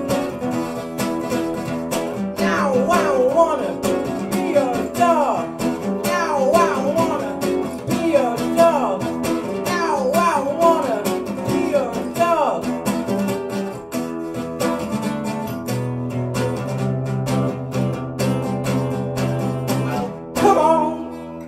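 A young man singing a song while strumming an acoustic guitar, amplified through a PA system. The playing and singing cut away sharply right at the end.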